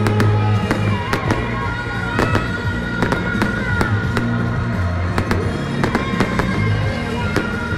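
Aerial fireworks bursting overhead, many sharp bangs and crackles in quick, irregular succession, over music with a steady low bass.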